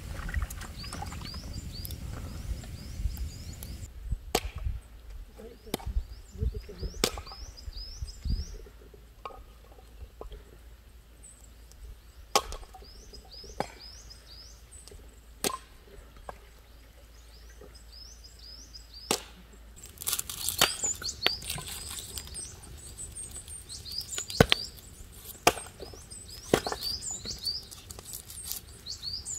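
Small birds chirping over and over, with a dozen or so sharp cracks and knocks scattered through it, busier in the last third; a low rumble fades out about eight seconds in.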